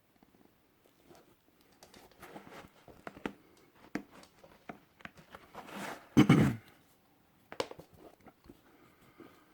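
Rustling, crinkling and light knocks from leather hiking boots and their packaging being handled, with one loud thump about six seconds in.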